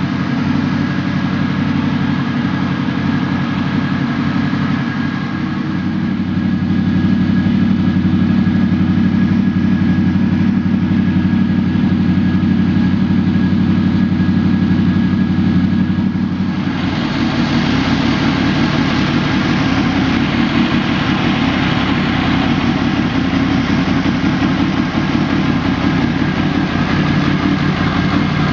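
Honda VFR800 Interceptor's V4 engine idling steadily. About two-thirds of the way through the sound abruptly turns brighter and hissier.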